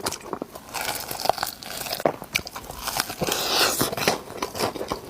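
Close-up eating sounds of chicken being bitten and chewed: a run of short crunches, thickening into a denser stretch of crunching a little past the middle.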